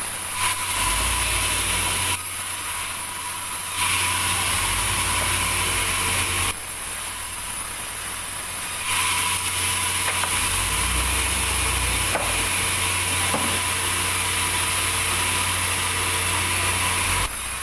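Sawmill saw running, with a high hiss that swells into three louder stretches of a few seconds each as it cuts through a meranti log.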